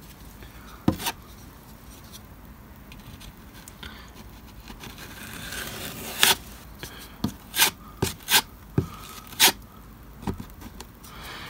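Small metal spreader blade scraping and smearing wet tile grout over a card surface: a low, steady rasping drag, broken by several sharp clicks as the blade knocks on the surface, mostly in the second half.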